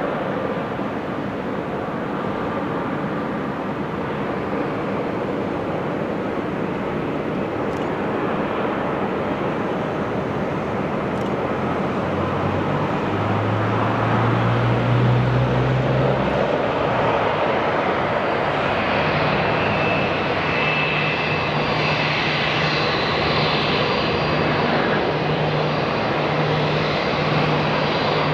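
Airplane engines and airflow making a steady rushing noise that grows a little louder about halfway through, with a low hum and a higher whine joining in the second half.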